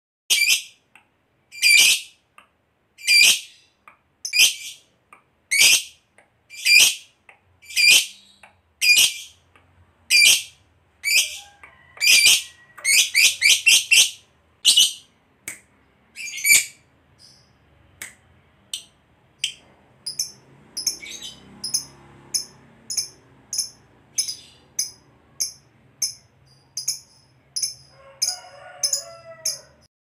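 Lovebird calling with sharp, high chirps about once a second, breaking into a fast chattering run a little before halfway (the 'ngekek' sought in lovebirds), then going on with quicker, fainter chirps.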